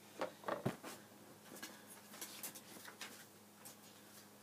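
Faint clicks and rustles of an old plastic model kit's box and parts being handled as it is opened, sharpest in the first second, over a faint steady hum.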